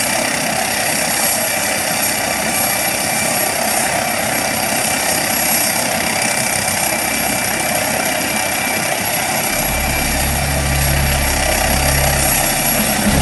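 MD 902 Explorer helicopter with its turboshaft engines running at ground idle: a steady whine with high steady tones over a broad rush. About ten seconds in, a low rumble joins and the sound grows slightly louder.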